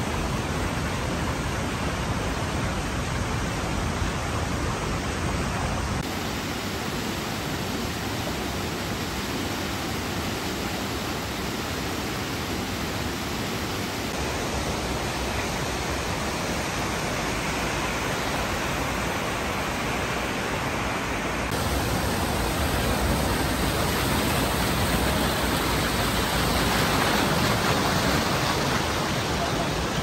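Mountain stream rushing over rocky cascades: a steady rush of water that changes tone suddenly about six seconds in and again about two-thirds through, and is louder near the end.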